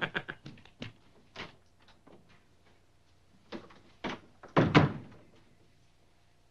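A door being opened and shut: two lighter knocks of the latch, then a heavier thud as it closes about four and a half seconds in, the loudest sound here. A few light clicks come in the first second.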